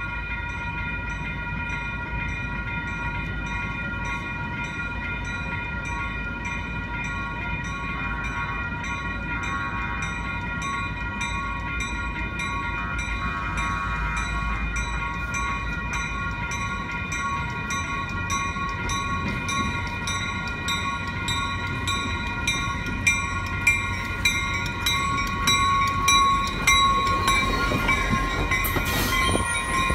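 Grade-crossing bells ringing with steady, evenly repeated strikes as a Coaster commuter train approaches. In the last several seconds the train's bilevel cars roll past, adding louder wheel clicks and a brief squeal.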